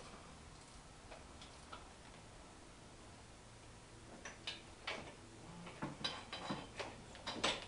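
Faint, irregular clicks and clinks of hand tools on engine parts in a car's engine bay: sparse at first, then more frequent and louder from about four seconds in.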